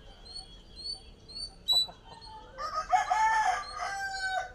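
A rooster crowing once: a long crow starting about two and a half seconds in and lasting nearly two seconds, after a shorter call a little before it. A steady run of short high chirps repeats behind it.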